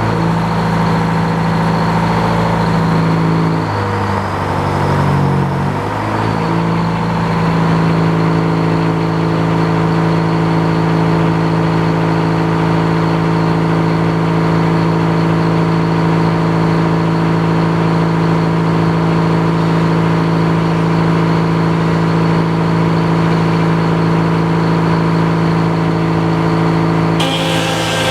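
Sawmill's engine running steadily just after starting, its pitch dipping briefly about four to six seconds in and then holding, with a rise in high hiss near the end.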